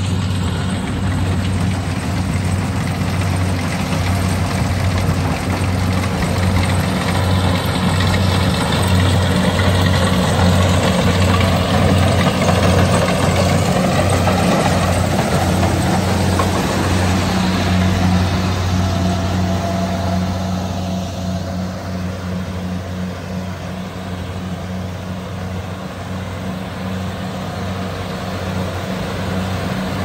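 Kubota DC-70 Plus combine harvester running while it cuts and threshes rice: a steady low engine drone with the rush of the working machinery over it, a little louder in the middle.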